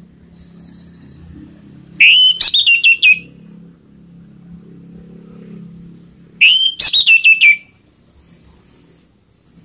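Orange-headed thrush singing: two loud song phrases about four seconds apart, each a rising note followed by a quick run of notes.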